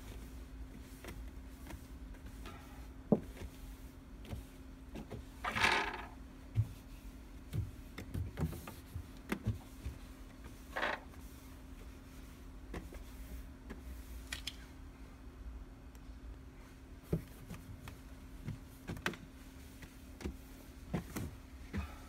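Cloth wiping the plastic floor of a refrigerator compartment: soft rubbing swishes, the loudest about six seconds in and another near eleven seconds, with scattered light knocks against the plastic, over a steady low hum.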